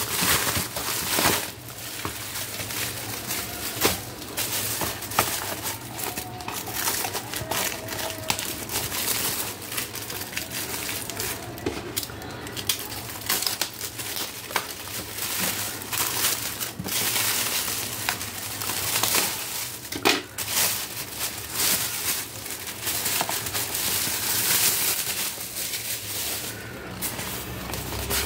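Plastic parcel wrapping crinkling and rustling as it is pulled and cut away from a box by hand.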